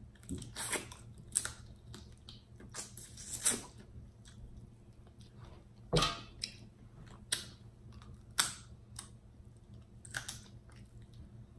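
Close-miked eating of snow crab: scattered sharp clicks, smacks and crackles of crab shell and wet mouth sounds. The loudest snap comes about six seconds in.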